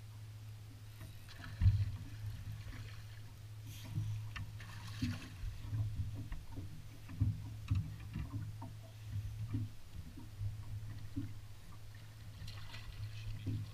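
Knocks and thumps on a bass boat's deck and hull over a steady low rumble, with one sharp thump about two seconds in. Near the end comes a hissing splash: a hooked smallmouth bass thrashing at the surface beside the boat.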